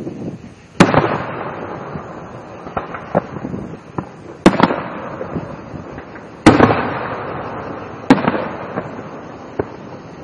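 Aerial firework shells bursting: a sharp bang about a second in, a quick double bang near the middle, then two more bangs, each trailing off in a long rolling echo, with smaller pops in between.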